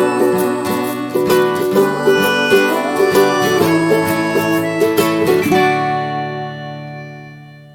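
Instrumental music picked fast on plucked strings, which stops a little past halfway; the last notes ring on and fade away.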